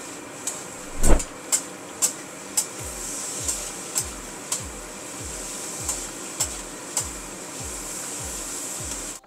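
Metal spatulas scraping and clanking against a flat-top griddle as fried noodles are tossed, over a steady sizzle. Background music with a steady bass beat, about two beats a second, comes in about three seconds in.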